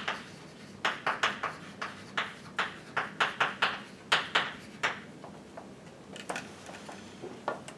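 Chalk writing on a blackboard: an irregular run of sharp taps and short scrapes, several a second, that stops about five seconds in.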